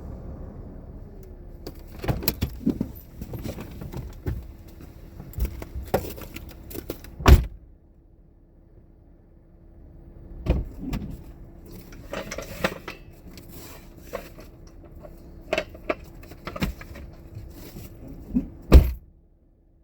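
Gear being handled: irregular clanks, knocks and rattles, with a loud thump about seven seconds in and another just before the end. A faint steady hum runs underneath from about a second in.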